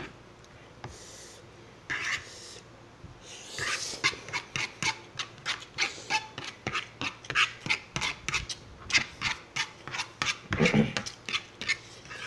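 Close-miked eating sounds: a couple of hissing breaths, then from a few seconds in a quick run of chewing and mouth smacks, about four a second, as a mouthful of fried instant noodles is eaten.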